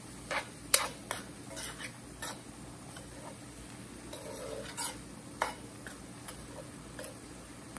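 Metal spoon stirring and scraping through onions, olives and liquid in a cast-iron skillet, with irregular clinks of the spoon against the pan; the sharpest clink comes under a second in.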